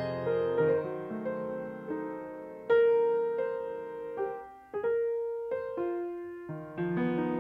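Yamaha C2 5'8" baby grand piano played solo: a slower, softer passage of single notes and chords, each struck and left to ring and fade, with a brief gap about two-thirds through before the playing picks up again.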